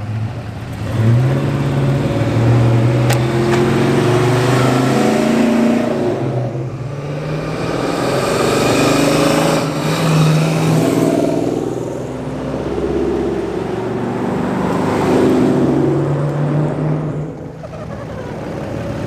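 Car engines revving and accelerating hard, their pitch rising and falling several times.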